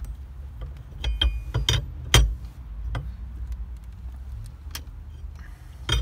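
Metal clinks and knocks of a four-way lug wrench being turned on a steering-shaft nut to tighten it down. A cluster of sharp strikes comes about one to two seconds in, one with a brief metallic ring, the loudest a little after two seconds, then another click near the end.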